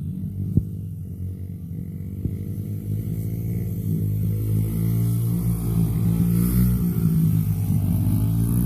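Two children's mini dirt bikes running, with a low motor drone that rises and falls in pitch and grows louder as the bikes come closer.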